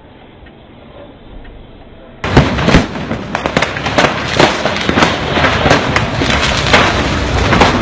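A faint hum for about two seconds, then suddenly a dense, irregular run of loud bangs and crackling pops: fireworks going off in a burning truck.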